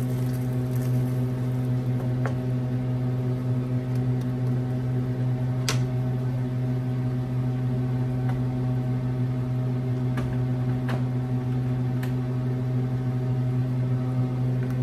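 A steady electrical hum from a running kitchen appliance motor, with a few faint clicks scattered through it.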